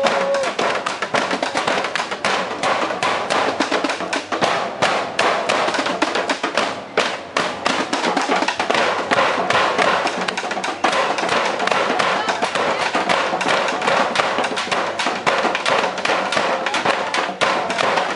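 Rapid, dense percussive knocking and tapping, kept up without a break.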